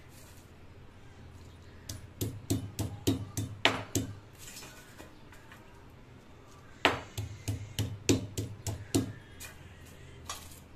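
Two quick runs of light clinks and taps from garlic cloves being picked over by hand in a steel plate, over a low steady hum.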